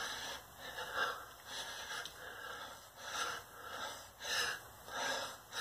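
Man breathing hard from the exertion of doing squats, with short, noisy breaths about once a second.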